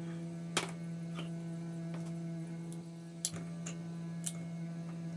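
Steady electrical hum with a few sharp clicks scattered through it.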